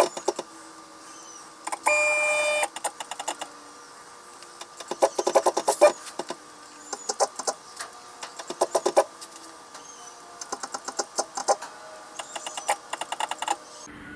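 Stepper motors of a CNC-converted Sieg X2 mini mill being jogged in short bursts from a pendant to find the work zero: quick runs of clicking steps, with one brief steady whine about two seconds in.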